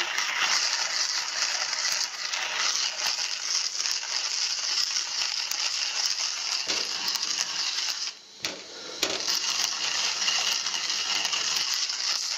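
Hand-cranked coffee mill grinding coffee beans: a continuous crunching rattle of beans being cracked, broken by a brief pause about eight seconds in before the grinding resumes.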